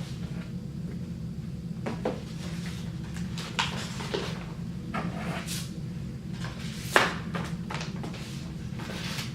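Packaging being handled by hand: an envelope opened, a shell kit slipped inside, the envelope sealed and a sticker pressed on, heard as scattered rustles and light knocks, the sharpest about seven seconds in. A steady low hum runs underneath.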